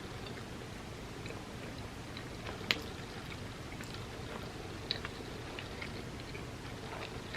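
Close-miked chewing of food, with a few scattered sharp mouth clicks and smacks, the loudest nearly three seconds in, over a steady low background hiss.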